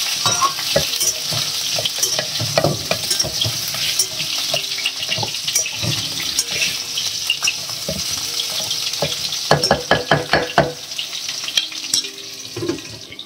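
Washed, still-damp rice and cumin seeds sizzling in hot ghee in an aluminium pressure cooker, stirred and scraped with a spoon against the pot. There is a quick run of spoon strokes about ten seconds in.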